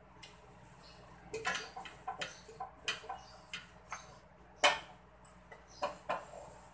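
Wooden spatula knocking and scraping against a nonstick pan and a ceramic bowl as cooked egg is scraped out, a run of about a dozen irregular clicks and taps, the loudest about two thirds of the way through.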